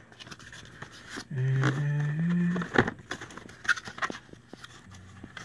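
Cardboard box being opened by hand: scattered light scrapes and taps of the packaging, with a man's short hum, steady then rising in pitch, a little over a second in.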